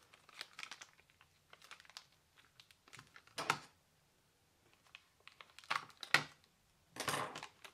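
Clear plastic bag around a solid-state drive crinkling as it is handled and cut open with scissors, in several short bursts of crackling: about three and a half seconds in, around six seconds, and near the end.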